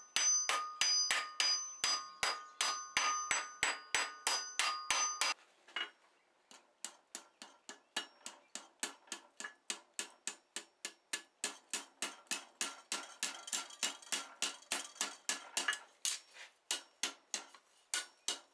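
Cross-peen hammer blows on red-hot steel. For about five seconds they fall at roughly four a second into a steel bottom swage, which rings with each blow as it dishes a crown into the hinge end. After a brief pause, a long run of steady, less ringing blows on the anvil face curls the end over to start rolling the hinge barrel.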